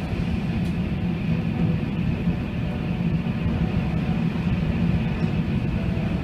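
Strong wind in a tornado, a steady low rumbling roar with a faint steady high tone above it.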